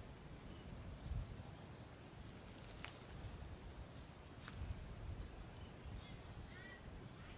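Steady high insect buzzing outdoors, over an uneven low rumble, with two sharp clicks in the middle and a few short, bird-like chirps near the end.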